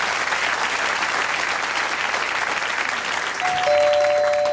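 Studio audience applauding. Near the end a two-note doorbell chime sounds, a higher note then a lower one, both ringing on.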